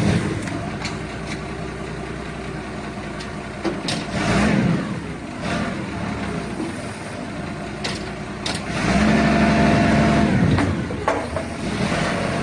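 Forklift engine running under load and revving up twice, about four seconds in and again near nine seconds, with a few sharp knocks in between.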